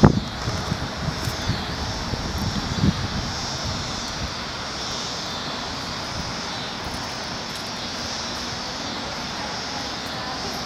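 A steady rush with a continuous high chatter from a huge flock of starlings swirling in a murmuration. A few low bumps come near the start.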